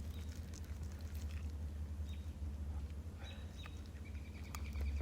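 Outdoor ambience: a steady low rumble with a few faint bird chirps, mostly in the second half, and scattered light clicks.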